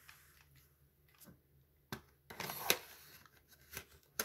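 Plastic cassette cases being handled: a few scattered sharp clicks and clatters, with a busier patch of knocking and rustling between two and three seconds in.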